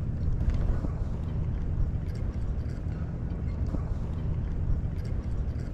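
Steady low rumbling noise of wind and lake water, at an even level throughout.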